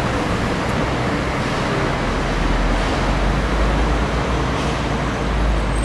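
Steady city street traffic noise, with a deep low rumble that swells about two seconds in.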